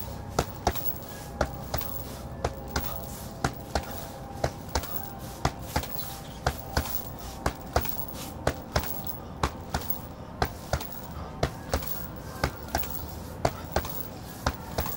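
Boxing-gloved punches landing on a heavy punching bag, a quick one-two pair of thuds about once a second.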